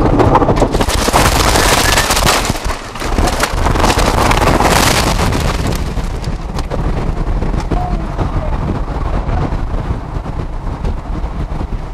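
Violent tornadic wind rushing against a storm-chase vehicle, with a rapid spatter of sharp cracks and knocks against the car, as a suction vortex of a multi-vortex tornado passes over it. It is loudest over the first half and eases after about six seconds.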